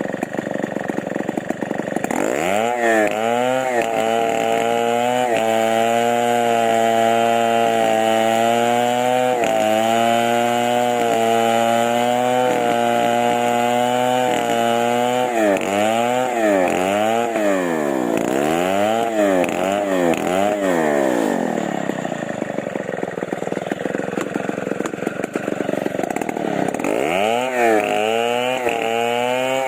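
Chainsaw engine idling, then revved up to a high pitch about two seconds in and held there with small dips. It is then blipped up and down about five times, drops back to idle, and revs up again near the end.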